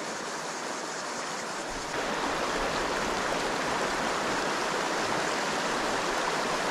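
Shallow, rocky creek water flowing and babbling over stones in a steady rush, which gets louder about two seconds in.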